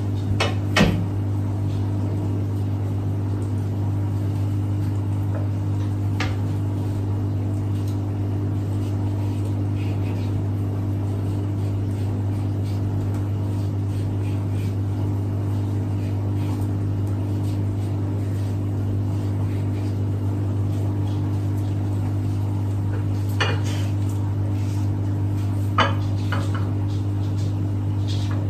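A steady low mechanical hum, with a few sharp clinks about a second in and several near the end.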